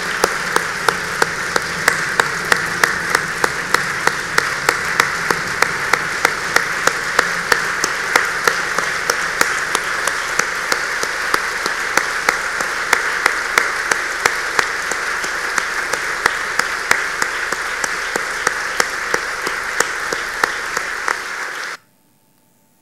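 A large audience giving a standing ovation with sustained applause. It cuts off abruptly near the end.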